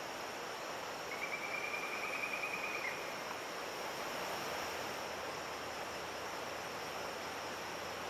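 Steady outdoor background hiss, with one high, pulsed trill lasting about two seconds, starting about a second in.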